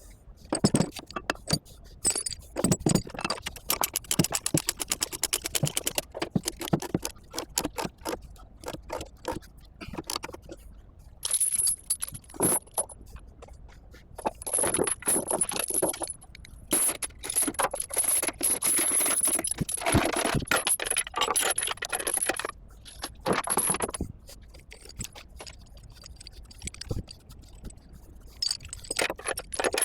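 Steel tie-down chains clinking, rattling and scraping over metal, with many sharp clanks, as an excavator is chained down on a lowboy trailer.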